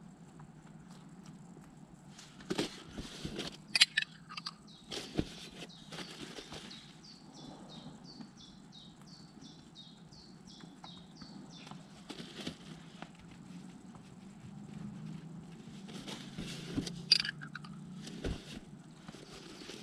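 Horseradish sauce being spooned from a jar and spread on bread rolls: faint, scattered clicks and scrapes of a metal spoon on the rolls and jar, with a plastic bag rustling.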